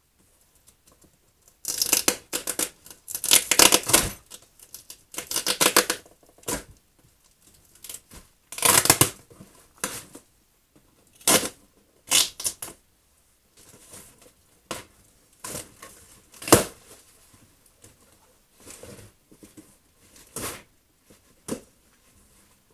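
A cardboard box being torn open by hand. There is a run of loud ripping sounds over the first ten seconds or so, then scattered shorter rips and quieter rustling as the contents are handled.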